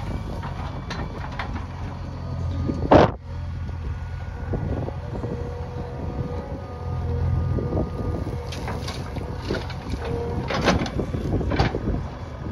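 JCB backhoe loader's diesel engine running steadily, with one loud bang about three seconds in and several lighter knocks later on.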